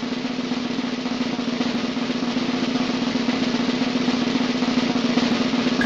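A continuous snare drum roll, growing slightly louder.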